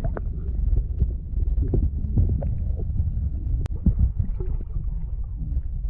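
A loud, low rumble with scattered knocks on the camera's microphone, the kind made by wind buffeting or by handling the camera.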